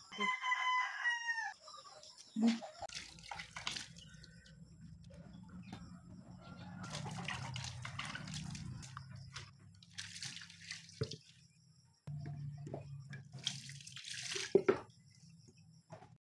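A rooster crows once, for about a second and a half with a falling pitch. After it come spells of rustling and light knocks as bunches of ripe bananas are handled, over a low steady hum.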